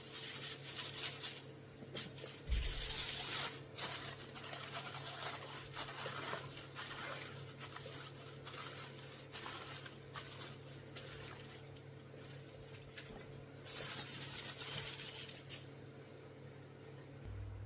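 Pressed green plantain frying in hot oil in a pot: sizzling and crackling that swells and eases off several times, over a low steady hum.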